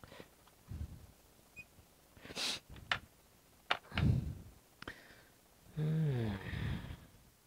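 A sharp exhale or sniff, then several quick clicks and a low knock of small objects being handled. About six seconds in comes a short wordless vocal sound, falling in pitch.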